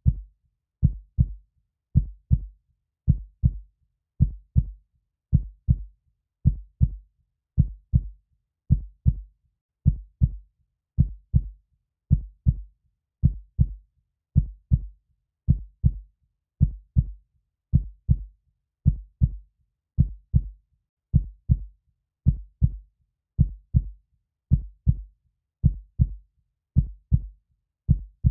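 Heartbeat: steady, even double thumps (lub-dub), a little slower than one beat a second, with silence between the beats.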